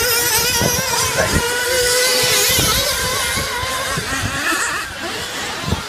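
Radio-controlled off-road buggies racing on a dirt track, their small engines revving up and down in pitch as the cars accelerate and brake through the course.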